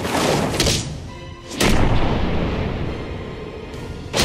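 Anime fight sound effects: heavy blows landing as sharp hits with a booming low rumble, the loudest about a second and a half in and another near the end, over dramatic background music.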